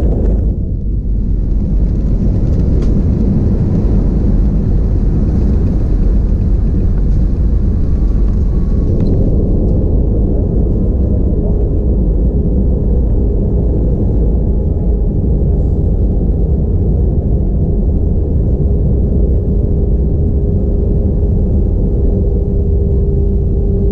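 Airbus A320-232 cabin noise at a window seat: a loud, steady low rumble with a rushing hiss that drops away about nine seconds in. After that a steady hum from the engines grows toward the end.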